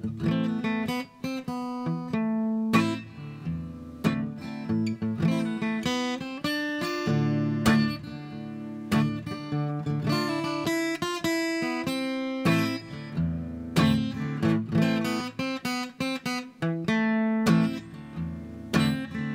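Solo acoustic guitar playing an instrumental passage without vocals, a steady run of picked notes and chords.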